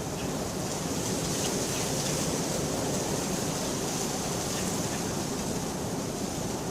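Steady rain falling, with faint scattered ticks of single drops and no thunder.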